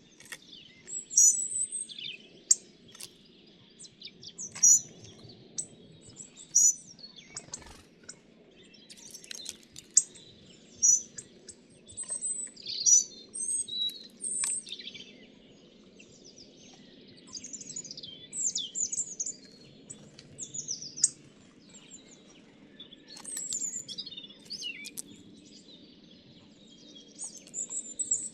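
Several small songbirds chirping and twittering in short high calls and trills. Several sharp taps stand out as the loudest sounds in the first half, then the calls come in clusters.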